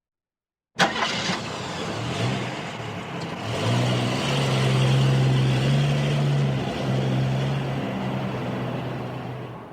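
Car engine started: a sharp click and brief cranking burst as it catches about a second in, then the engine runs, revs up as the car pulls away, and fades out near the end.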